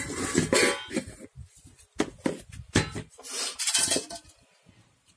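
Steel spoon stirring thick flour dough in a metal pan, scraping and clinking against the pan in bursts, with a few sharp clinks midway.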